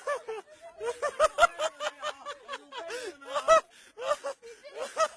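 A woman's high-pitched voice in short, broken bursts of laughter and gasps, mixed with a few words, on a glass cliff walkway.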